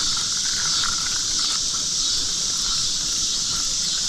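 Steady chorus of crickets and other insects.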